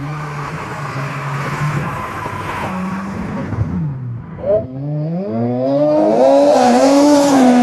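AI-generated race car sound effect: an engine note that climbs and drops in pitch as it revs through gear changes, then rises and grows louder near the end as the car draws closer.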